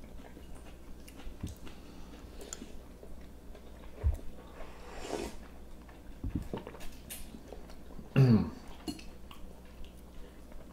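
Eating sounds: chewing instant noodles, with small clicks of cutlery and dishes. There is a sharp knock about four seconds in. Near eight seconds comes a short low hum that falls in pitch, the loudest moment.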